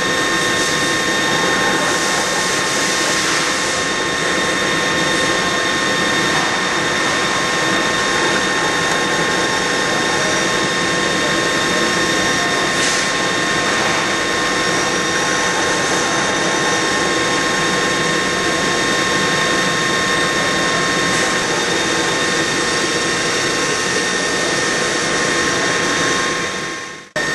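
Fryer ET-21 CNC toolroom lathe cutting a metal bar: a steady machine whine made of several constant high tones over an even cutting hiss. The sound drops out briefly near the end.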